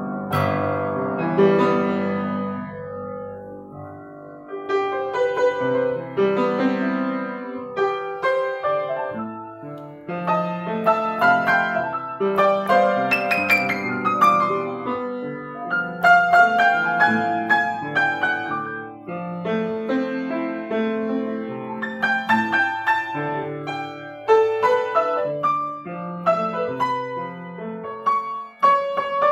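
Kawai GL-40 grand piano played solo: a slow, lyrical piece with a melody over sustained chords. It grows quieter about four seconds in, then builds to a fuller, louder passage from about ten seconds on.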